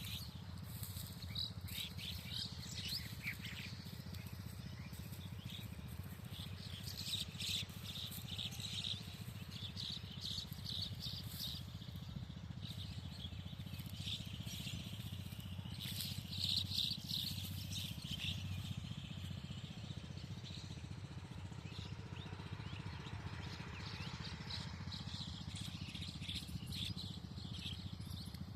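Small birds chirping and twittering in quick runs, over a steady low hum.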